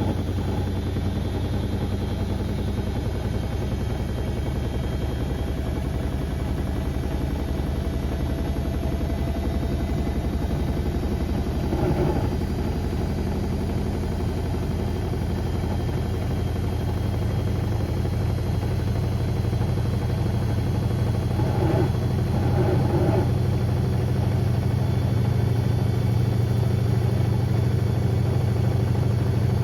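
Beko WM74135 washing machine running, a steady low drone from its motor and drum that gets louder and a little higher about two-thirds of the way through, with a few dull thuds along the way.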